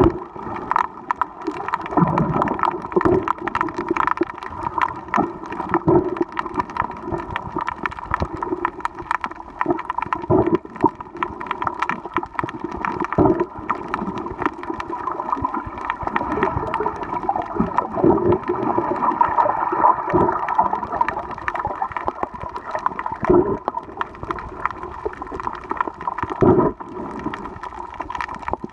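Underwater sound picked up by a camera submerged while snorkeling: water movement and gurgling with a steady hum and many scattered clicks, and a few short low thuds.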